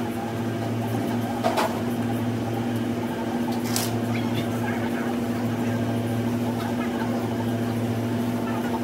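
Steady low electrical hum of laundromat machinery, with light clicks and knocks as laundry is stuffed into a front-loading washer, the sharpest about a second and a half in and another near four seconds.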